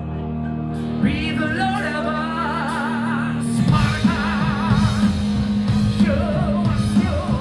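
Power metal band playing live: a held guitar chord, then a singer's line with wide vibrato entering about a second in, and the drums and full band crashing in about three and a half seconds in.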